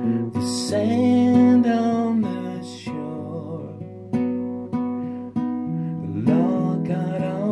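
Song with a strummed acoustic guitar and a voice singing long held, wavering notes.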